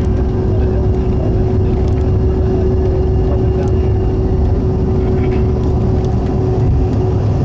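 Steady low rumble of a jet airliner heard inside the passenger cabin, with one constant hum above it.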